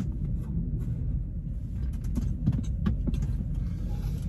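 Low steady rumble of an idling truck engine heard inside the cab, with a few faint clicks and rustles around the middle.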